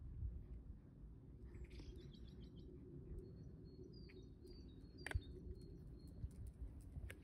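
Small songbirds chirping faintly in short high calls and a brief trill, over a low steady rumble. A sharp click comes about five seconds in.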